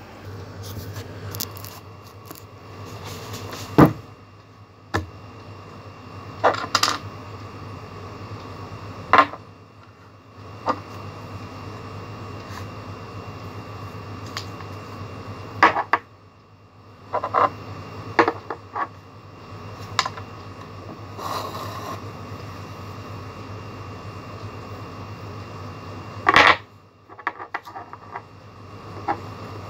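Scattered clicks, knocks and rustles of art materials (tissue, paint bottle and its cap) being handled on a wooden table, over a steady low hum. The loudest knocks come about 4 s in, around the middle and near the end.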